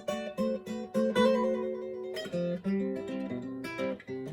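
Acoustic guitar playing a picked pattern of quick single notes, moving to a new set of notes about two seconds in.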